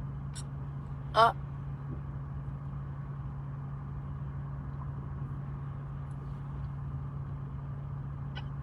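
Steady low hum of a car's engine and road noise inside the cabin. About a second in comes one short, sharp hiccup.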